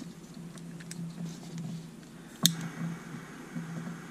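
Small handheld heat gun running with a low, steady hum while heat-shrink tubing is being shrunk, with a few sharp clicks of handling; the loudest click comes about halfway through.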